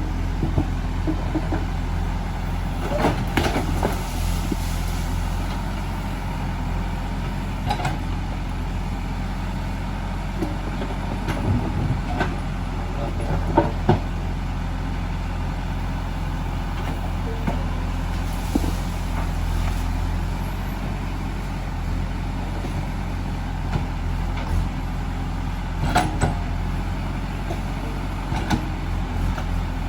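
JCB 3DX backhoe loader's diesel engine running steadily under work, with scattered knocks and clatters from the machine working.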